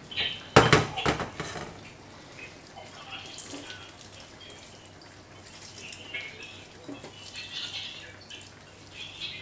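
Water dripping and splattering into a stainless steel sink as wet chopped spinach is squeezed out by hand over a plastic colander. A brief, loud clatter about half a second in is the loudest sound.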